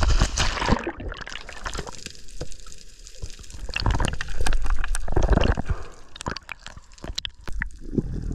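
A splash as the diver goes under the surface, then muffled water sounds heard underwater: gurgling and rushing water with many scattered sharp clicks, and a louder surge of water movement midway.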